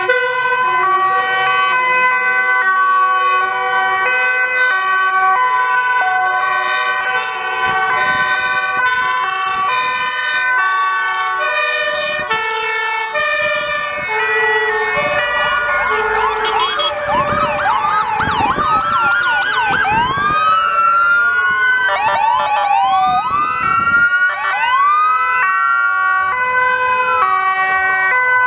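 Sirens of several emergency vehicles passing in a convoy. At first, overlapping two-tone sirens alternate between two notes. From about halfway, rising and falling wailing sirens take over and cross each other.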